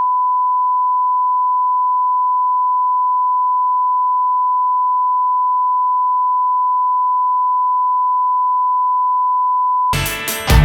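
Steady single-pitch test tone, held without a break for about ten seconds. It cuts off near the end as rock music starts.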